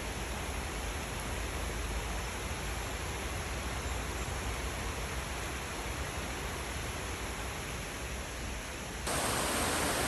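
Steady rushing of a shallow stream flowing over rocks. About nine seconds in it cuts abruptly to louder water cascading over rocks.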